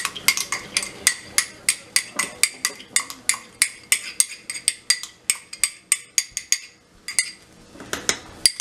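A spoon clinking rapidly against a small cup as coloured yogurt is scooped out and dabbed onto rice, about four sharp clinks a second. The clinks pause about seven seconds in, then a few more follow near the end.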